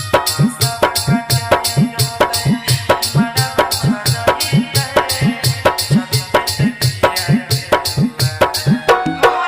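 Instrumental music with a fast, steady percussion beat: a deep pitch-bending drum stroke, like a tabla or dholak bass, about every 0.6 s under sharp rattling hits and held melodic tones.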